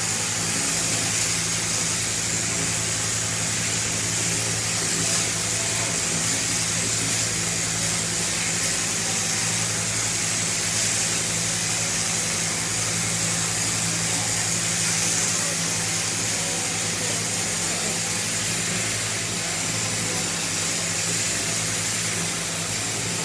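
Electric sheep-shearing machine running steadily as the handpiece cuts through a sheep's fleece: a constant low motor hum with a strong high hiss from the cutter.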